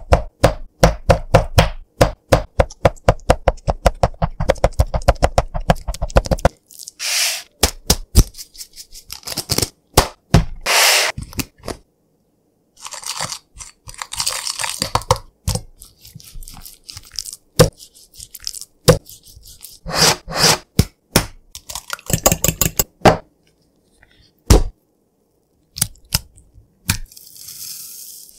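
A fork stabbing a raw chicken breast on a wooden cutting board in rapid sharp taps for about six seconds, then a spoon scraping and rubbing spice paste on a plate in uneven bursts with pauses, and near the end a soft hiss of breadcrumbs pouring into a dish.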